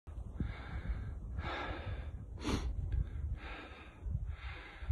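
A person breathing heavily close to the phone's microphone, several audible breaths in and out, with a short sharp intake about halfway through. A steady low rumble of handling noise runs underneath.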